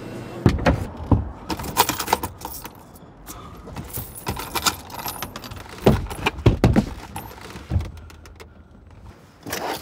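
Loose coins clinking and jingling as a hand scoops change out of a car's cup holder, in two bursts of sharp metallic clinks.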